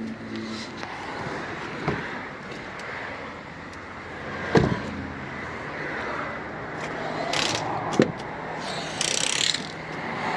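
A car's interior fittings being handled: a few sharp knocks and mechanical clicks, the loudest about halfway through, with short scraping or rustling sounds near the end.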